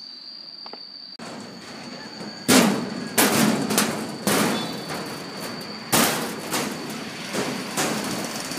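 A steady high insect drone, with rustling noise and a few loud, irregular thuds from about two and a half seconds in, each fading out over half a second or so.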